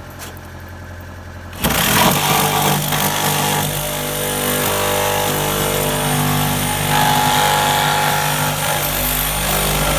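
Power saw cutting into the wooden framing of a chimney chase. It starts abruptly about two seconds in and runs steadily and loudly at an even pitch to the end.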